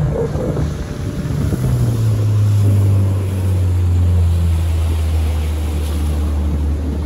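A boat's motor running, its hum dropping to a lower pitch about two seconds in and then holding steady, with wind buffeting the microphone.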